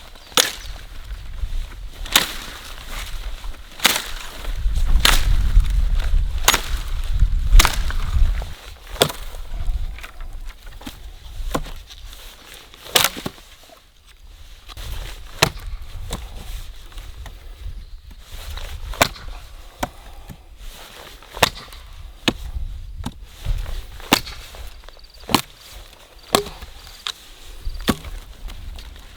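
Wood being chopped: a run of sharp blows, roughly one every second or so, with a low rumble for a few seconds partway through.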